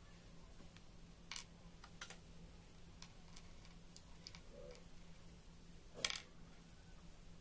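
Faint scattered clicks and light taps of small objects being handled, the loudest about six seconds in, over a steady low hum.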